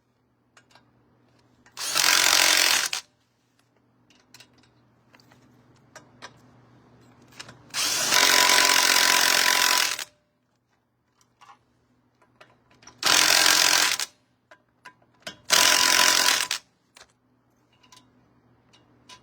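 Impact wrench spinning lug nuts onto a truck wheel in four bursts of one to two seconds each, the longest about two seconds, with small clicks of handling between them.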